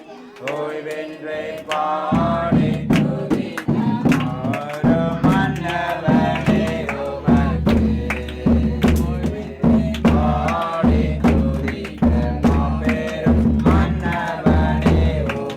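A song sung with drum accompaniment: a melodic vocal line over a steady drum beat that comes in about two seconds in.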